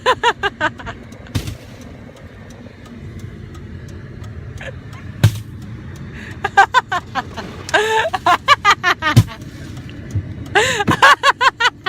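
Several bouts of laughter, in quick repeated pulses, over a steady low car-engine hum, with a few sharp knocks in between.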